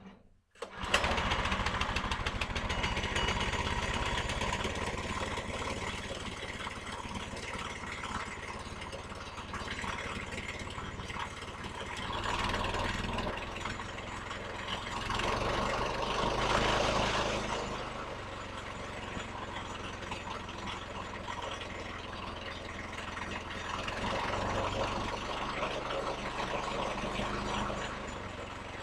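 Portable sawmill's pull-start gasoline engine catching about a second in on its first start after choking, then running steadily, louder for a few seconds around the middle.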